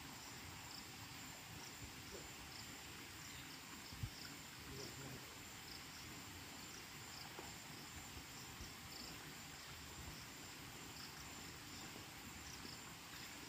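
Faint forest ambience: a steady high insect drone with short chirps repeating throughout, and a single soft knock about four seconds in.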